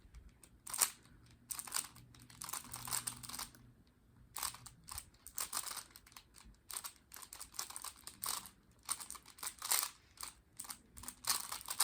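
3x3 Rubik's cube being turned fast during a speed-solve: irregular runs of rapid plastic clicking and clacking as the layers snap round, with short pauses between runs.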